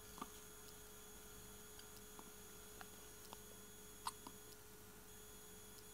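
Faint hiccups over a steady low electrical hum: one about a quarter second in and a slightly louder one about four seconds in.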